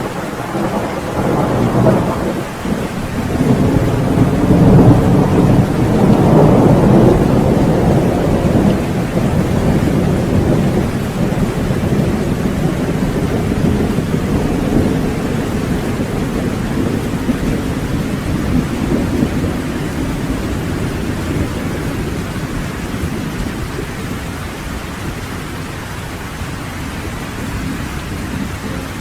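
Steady rain with a long roll of thunder that builds over the first few seconds, is loudest around five to seven seconds in, then rumbles away slowly under the rain.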